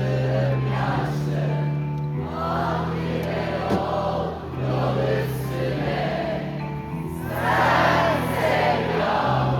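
Live band music with sung vocals over sustained bass notes that change every second or two. Many voices sing together, as a concert crowd singing along with the chorus.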